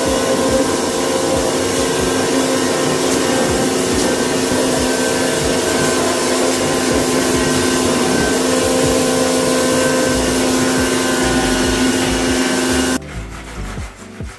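A motor-driven machine running at a steady speed with a constant hum, then switched off suddenly about thirteen seconds in.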